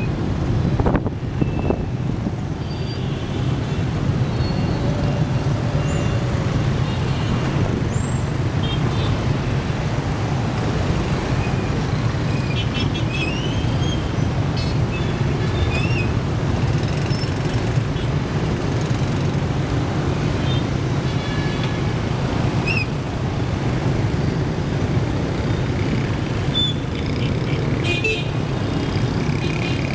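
Dense motorbike and scooter traffic heard while riding among it: a steady drone of many small engines, with short horn toots scattered throughout.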